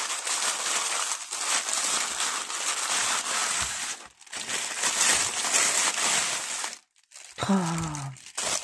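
Tissue paper crinkling and rustling as a wrapped parcel is handled and unwrapped, in long stretches broken by two short pauses, one about four seconds in and one near seven seconds.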